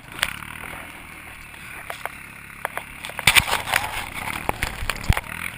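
ATV engine running steadily with a low drone. A burst of knocks and scrapes comes about three seconds in, and a single sharp thump comes near the end.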